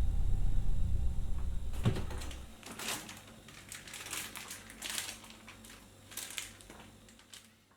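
A loud low hum stops about two and a half seconds in. Scattered rustling and crinkling noises run alongside and after it, growing fainter toward the end.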